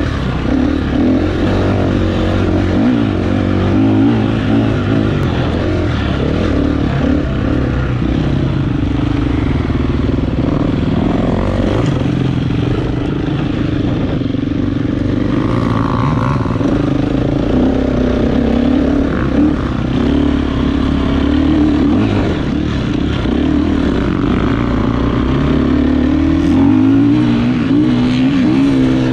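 Dirt bike engine running as the bike is ridden, its note rising and falling with the throttle.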